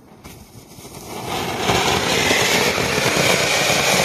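Cone fountain firecracker (anar) spraying sparks: a steady rushing hiss that builds over the first second and a half, then holds loud.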